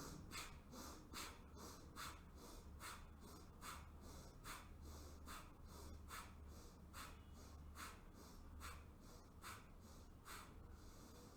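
Right-nostril bhastrika breathing: rapid forceful inhalations and exhalations through one nostril, one breath in and out a little more often than once a second, with stronger and weaker strokes alternating.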